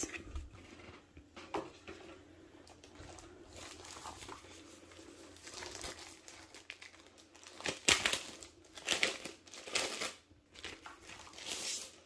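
Plastic protective sleeve crinkling and rustling in irregular bursts as a slim digital typewriter is slid out of it, loudest in the second half.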